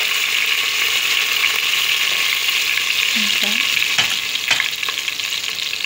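Whole spices (cumin seeds, cinnamon sticks and curry leaves) sizzling steadily in hot oil in a stainless steel pot, with two sharp ticks about four seconds in.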